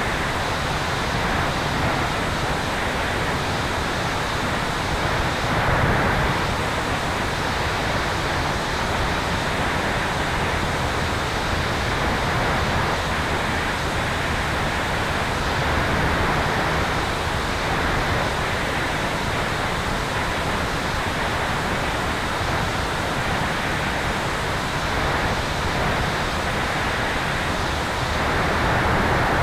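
Steady rush of airflow over a tail-mounted camera on a Sonex Xenos electric airplane in flight, swelling slightly in level twice.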